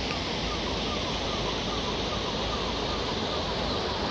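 Steady rushing of floodwater flowing across a road and fields, an even hiss-like noise. A faint short falling whistle repeats about three times a second through it.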